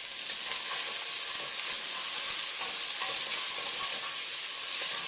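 Diced onion, carrot, potato and celery sizzling steadily in hot olive oil in a saucepan.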